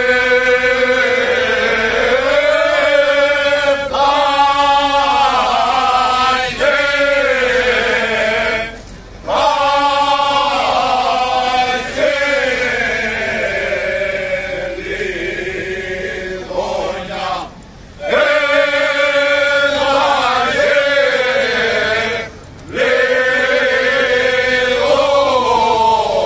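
A group of men singing a rizitiko, a traditional Cretan song, together without instruments, in long drawn-out held phrases with short breaks for breath between them.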